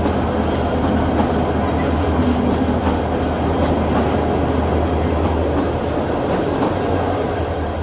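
A moving train running steadily: a continuous low rumble with the occasional faint click of wheels over the rails.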